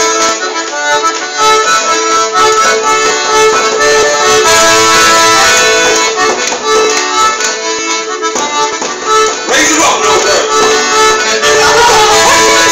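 Live Irish traditional music: a running tune played on instruments, with some voices in the room.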